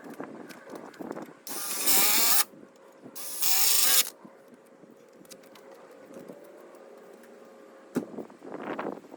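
Power drill running in two bursts of about a second each, with a sharp click near the end.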